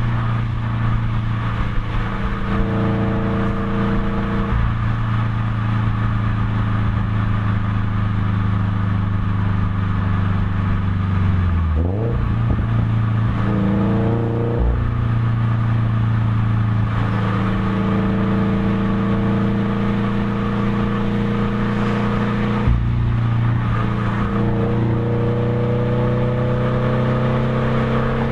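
Subaru BRZ's flat-four engine with unequal-length headers and a Perrin resonated exhaust, heard from the bumper while driving: a steady exhaust note with brief dips and rises in pitch several times as the revs change, around the middle and again later.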